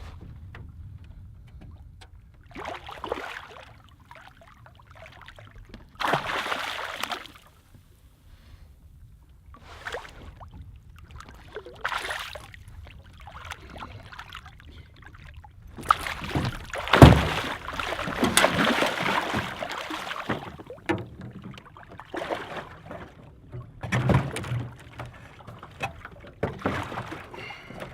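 Irregular splashing and sloshing of water at the side of a small boat, as a hooked shark thrashes near the surface. The splashes come in bursts of a second or two, the loudest about 17 seconds in, over a faint steady low rumble.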